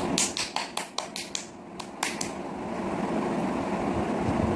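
A quick run of about ten short scratchy strokes over the first two seconds, then only a steady low hum.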